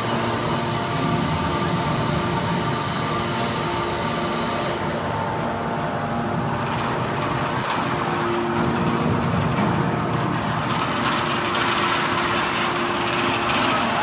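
Hydraulic power unit of a 500-ton automatic scrap metal baler running steadily as the machine ejects a compressed bale of aluminum cans: a continuous machine hum with several held tones. A high hiss over it drops away about five seconds in.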